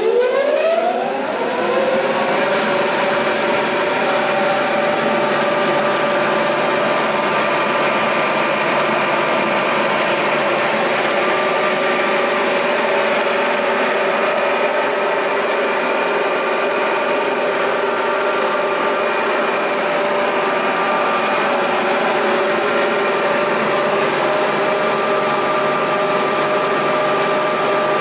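Butfering 240 long-belt sander switched on and spinning up to speed, its hum rising in pitch over the first two seconds or so, then running steadily at full speed.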